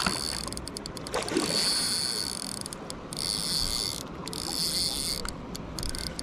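Spinning reel whirring in several stop-start spurts while a hooked trout is played on light line, with the fish splashing at the surface near the start.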